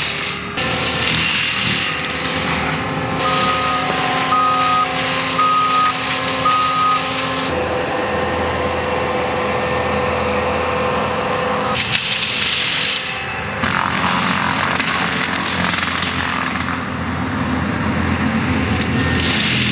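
ASV 135 track loader with a forestry mulcher running steadily, its backup alarm beeping four times about a second apart a few seconds in. Louder stretches of rushing noise come around the middle and again near the end.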